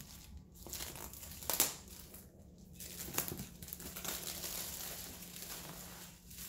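Clear plastic shrink-wrap being pulled off a cardboard box, crinkling and crackling, loudest about a second and a half in.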